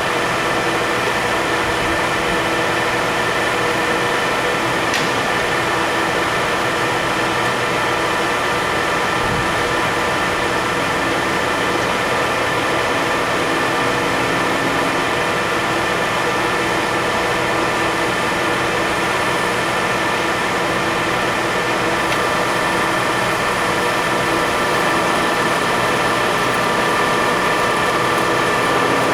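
Clausing 17-inch engine lathe running under power, its spindle and headstock gear train turning with a steady mechanical whine made of several held tones over a machine hum. There is one short tick about five seconds in.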